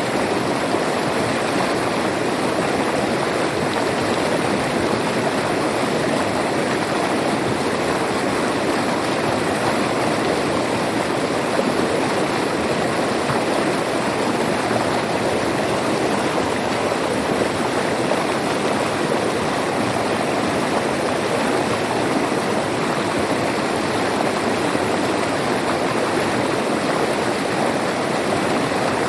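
River water flowing over rocks: a steady, unbroken rushing and babbling.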